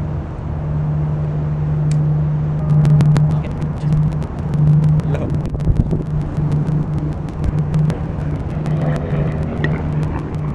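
A steady low engine drone, with scattered light clicks from about three seconds in.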